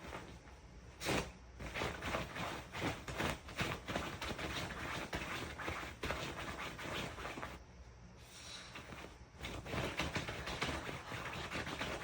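A dog snoring and snorting in its sleep: irregular, noisy breaths and snorts, with a brief pause about two-thirds of the way through.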